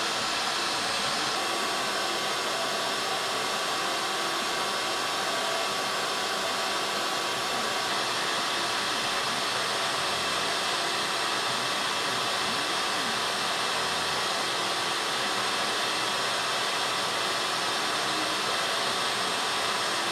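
Vacuum motor of a CNC vacuum table running steadily with an even, blower-like hiss. Under it, the CNC router's motors slowly drive a fabric marker across the shirt.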